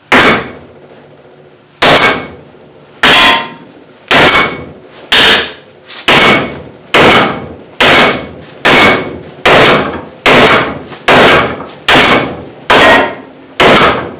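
A steel claw hammer striking a 3D-printed PLA+ lathe faceplate clamped in a bench vise, about fifteen hard blows roughly one a second, coming a little faster toward the end, each ringing briefly. The blows dent the plastic's surface but do not crack or break it.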